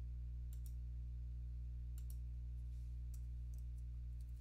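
A few faint computer mouse clicks over a steady low electrical hum.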